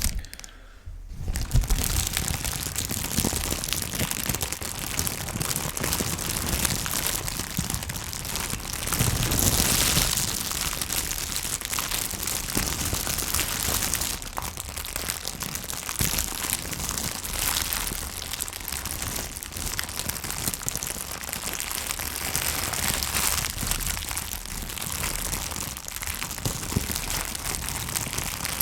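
A plastic bag crumpled and crinkled close to a microphone, giving a dense, steady crackle that imitates a burning fire. It starts about a second and a half in, after a brief quieter moment.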